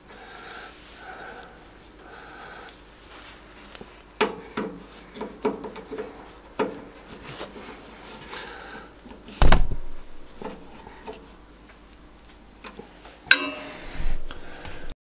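Small metallic clicks and knocks of a screwdriver working the pointer screw on a Charnwood B350 bandsaw's tilt scale and trunnion, with one louder thump about halfway through.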